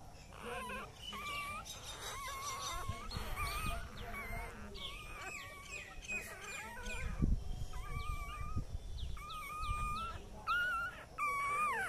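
Puppy whimpering and whining: a long string of short, high-pitched, wavering cries, one after another. There are a few dull low bumps about seven seconds in.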